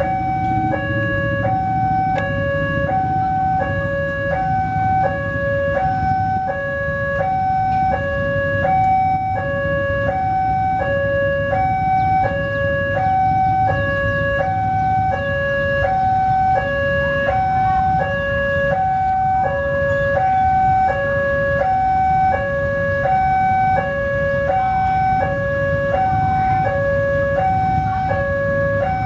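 Railway level-crossing warning alarm sounding continuously, two tones alternating evenly high and low, about one pair a second: the crossing is closed for an approaching train. A low rumble runs underneath.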